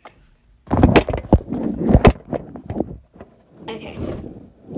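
Handling noise from a phone camera being gripped and moved by hand: a run of knocks and clatter, then a short rustle near the end.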